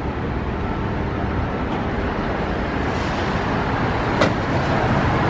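Steady road traffic noise from cars passing in the lanes, with one sharp click about four seconds in.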